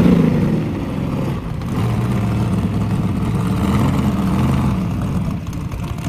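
A car engine running and revving, loudest at the start, dipping a little about a second and a half in, then holding steady.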